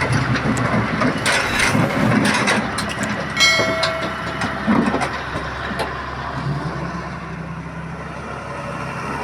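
Diesel engine of a Doosan Solar 130 excavator running under work, with clattering knocks of the machine's metal parts in the first few seconds and one ringing metal clang about three and a half seconds in; after that the engine runs more steadily and a little quieter.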